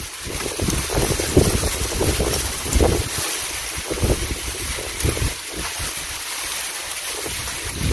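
Wind buffeting the microphone: irregular low rumbling gusts over a steady hiss.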